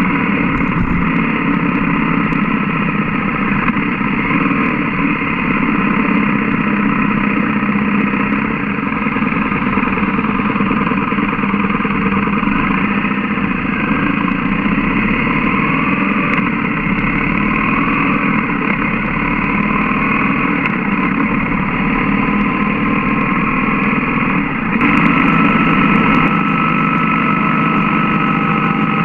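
BMW GS Adventure's boxer-twin engine running under way, mixed with road and wind noise. The engine note rises briefly several times in the middle, and the sound grows louder and brighter about 25 seconds in, with a steady whine as the bike speeds up.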